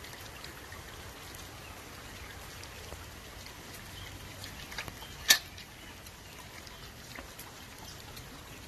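Light rain pattering steadily, with scattered drop ticks and one sharp click about five seconds in.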